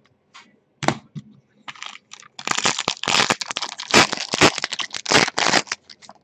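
Silver foil wrapper of a trading-card box being torn open and crinkled by hand, then a clear plastic inner sleeve rustling as the cards come out. A sharp tap about a second in, then dense crinkling for about three seconds.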